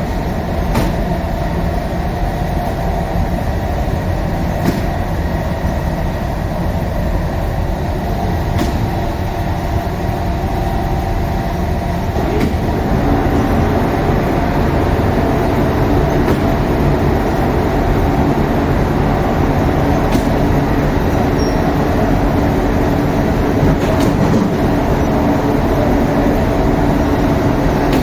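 Steady mechanical rumble with a low hum, growing louder and fuller about twelve seconds in.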